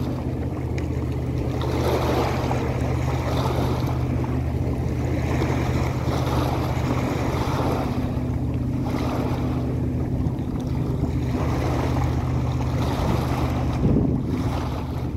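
Wind buffeting the microphone and small waves washing on a rocky shore, swelling and easing every few seconds, over a steady low motor hum.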